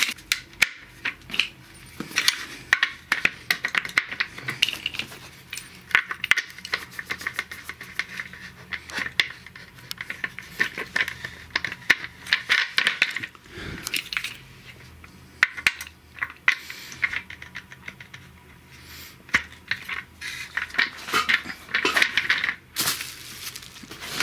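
Plastic office-chair parts being handled and fitted: many sharp clicks, knocks and small rattles, with crinkling of a plastic parts bag at the start.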